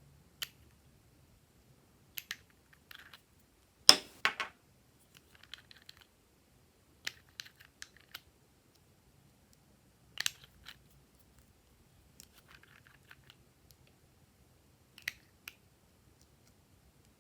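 Glossy slime being kneaded and pressed by hand, making scattered sharp clicks and pops, with the loudest cluster about four seconds in.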